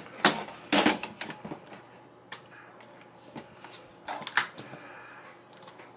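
Irregular sharp clicks and knocks of metal rifle parts being worked by hand as a part is taken off an AR-15 rifle. The loudest come about a second in and about four seconds in.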